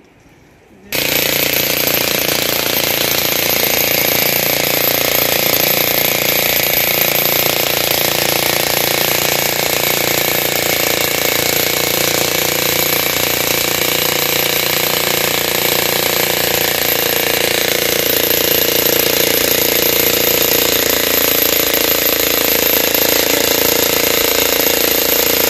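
Handheld electric demolition hammer breaking up a cement-concrete road surface. It starts suddenly about a second in and then hammers steadily and loudly without a break.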